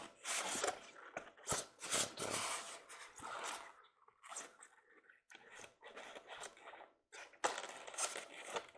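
Hands handling a toy train car and its box packaging: irregular crinkles, clicks and scrapes, short and uneven, with brief pauses.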